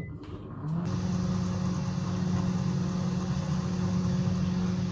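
Microwave oven switching on and running with a steady hum, heating a bowl of water and orange peels; the hum starts after a click about a second in.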